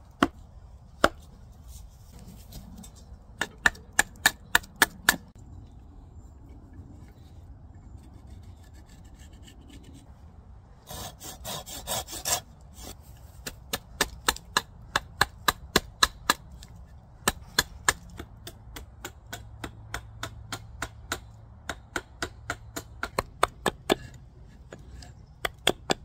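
Small hatchet chopping a split wooden spoon blank against a stump: a series of sharp wooden knocks in runs of about three to four strokes a second, with a quick flurry of denser strokes around the middle.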